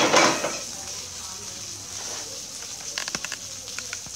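Portable gas stove and wok being picked up and moved on a wooden slat table: a brief loud clatter and scrape at the start, then a few light knocks about three seconds in.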